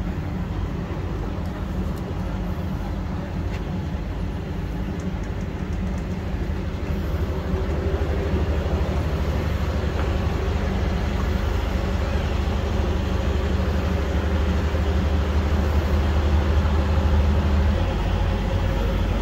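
Interior ride noise of a Dubai Metro train: a steady low rumble and hum that grows louder about seven seconds in and eases slightly near the end.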